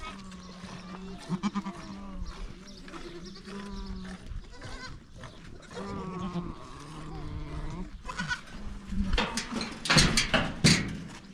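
Goats bleating again and again, each a long, level call of about a second. Near the end come several loud, sharp knocks and rattles, louder than the bleating.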